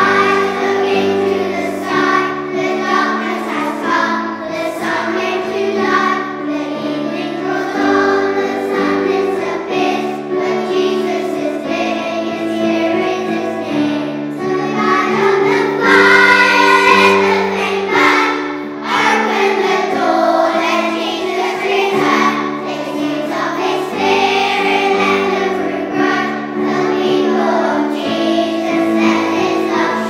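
A group of young children singing a song together over instrumental accompaniment, swelling loudest about halfway through.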